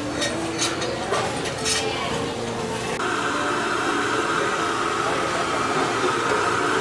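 Gas stove burner under a pan of boiling soup: a few light clinks, then about three seconds in a steady hiss with a held tone comes in and runs on.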